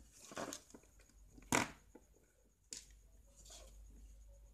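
Handling noise from multimeter test probes and a mobile phone battery being moved on a tabletop: a few scrapes and small knocks, the loudest a sharp knock about a second and a half in.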